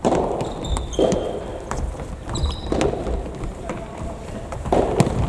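Indoor futsal play: a ball kicked and bouncing with sharp thuds, running footsteps on the hall floor, and a couple of brief high squeaks about 1 and 2.5 seconds in.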